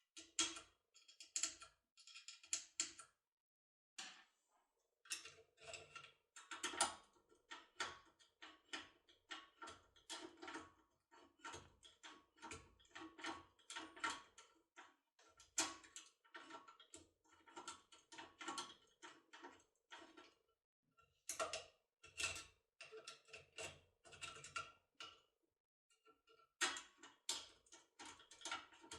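Metal clicking and rattling of a locksmith's magic key tool being worked inside a Cisa 3x3 lever lock while turning the bolt a third time. The clicks come in quick, irregular runs with a few short pauses.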